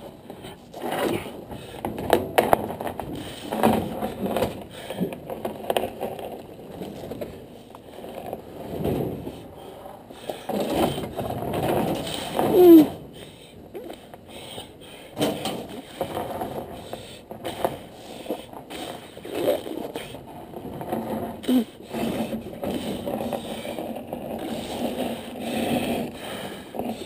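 Irregular scraping and clattering of hard objects being handled and dragged, with scattered sharp knocks and a brief squeal about halfway through.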